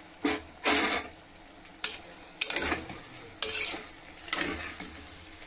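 Long metal spoon stirring diced carrots and potatoes in masala inside an aluminium pressure cooker, scraping against the pot in short strokes about once a second.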